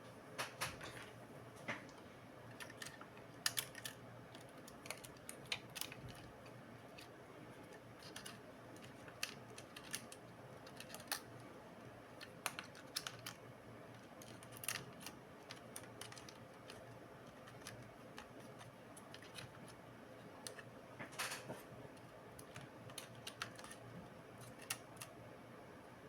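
Irregular small clicks and taps of hands working on laptop parts and tools, scattered throughout with a few sharper ones.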